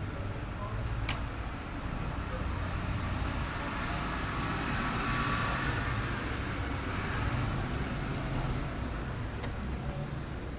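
Steady low background rumble with a hiss that swells and fades through the middle, and two sharp clicks, about a second in and near the end.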